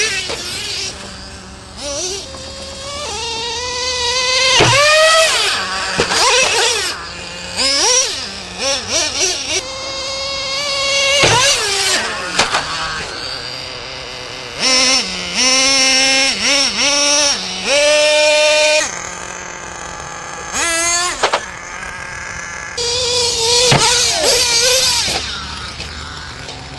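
Nitro glow engine of a radio-controlled monster truck revving, its high-pitched whine rising and falling in repeated bursts as the throttle is worked.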